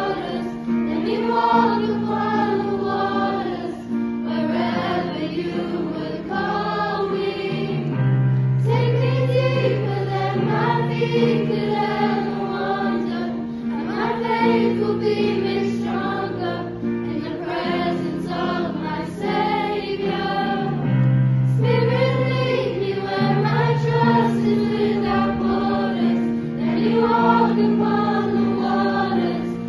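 Background music: a choir singing over held low chords that change every few seconds.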